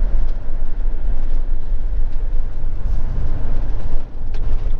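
Road and engine noise inside a moving motorhome's cab: a steady low rumble, with a few light clicks near the end.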